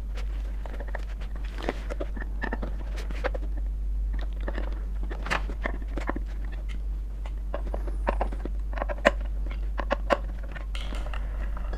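Phillips screwdriver turning the screws back into a ceiling fan's motor cover: irregular small clicks and scrapes of the tool in the screw heads and on the housing, over a steady low hum.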